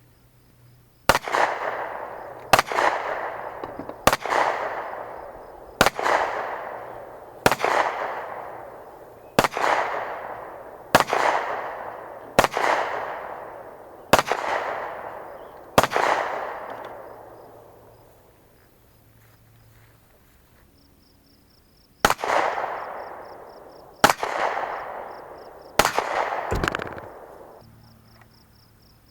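A firearm fired in a slow series of single shots, about one every one and a half seconds, each trailing a long fading echo; after ten shots there is a pause of several seconds, then four more, the last two close together.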